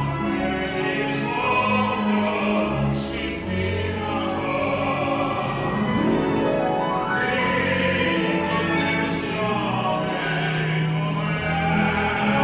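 Opera-style singing with instrumental accompaniment, a continuous classical-style performance of a romantic song.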